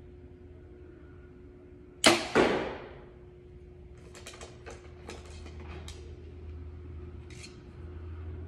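Compound bow shot off a hand-held thumb release: a sharp snap of the string about two seconds in, then a second loud hit a moment later that dies away. A few light clicks follow as the bow and arrows are handled.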